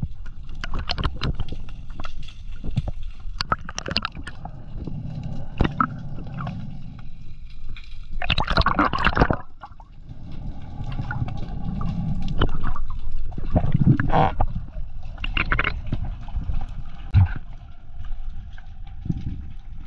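Underwater sound picked up through a camera's waterproof housing: gurgling water movement with many scattered clicks and knocks, and a longer, louder rush of bubbling near the middle.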